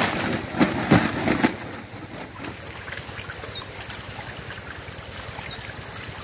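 Running water, with several loud splashes in the first second and a half, then a steady trickle.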